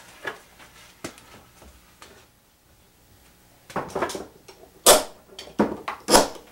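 Metal F-style bar clamps being set on a glued-up board lamination: a few light clicks, then several sharp metal clanks and rattles in the second half as the sliding jaws are pushed along the bars and tightened.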